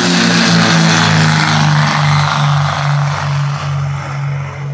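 Twin-engine propeller plane at takeoff power: a loud, steady propeller drone with a rushing noise that swells as the plane passes and then fades near the end.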